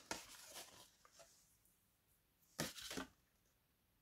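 Faint rustling of paper and card being handled on a cutting mat, with one short louder rustle about two and a half seconds in.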